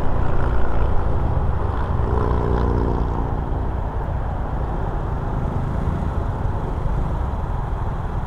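Riding noise from a 2015 Honda PCX150 scooter under way: a steady low drone of the single-cylinder engine and road, mixed with wind noise on the microphone, easing off a little over the first few seconds.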